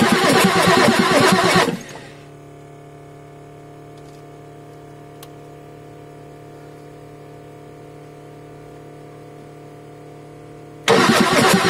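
Ford 6.9L IDI V8 diesel turning over on its starter without catching for about two seconds, then stopping; a faint steady hum fills the pause, and cranking starts again near the end. The newly replaced injection pump is not yet delivering fuel, so the engine does not fire.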